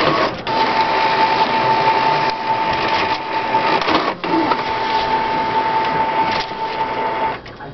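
Epson inkjet printer's mechanism running: a steady motor whine over mechanical rattling. It breaks off briefly about four seconds in and stops abruptly near the end.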